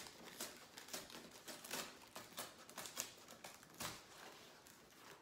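Tear strip of a cardboard book mailer being pulled open: a faint run of irregular crackling clicks and small rips, with one sharper rip a little before the end.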